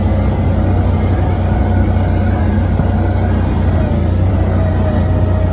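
ATV (quad) engine running steadily while riding along a trail, a constant low drone with a faint wavering whine above it.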